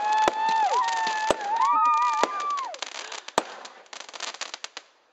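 Fireworks going off: sharp bangs and a dense crackle. Over them, two drawn-out, excited shrieks, "Haaaa" and then a higher "Hiiieeee" that wavers. The sound fades out near the end.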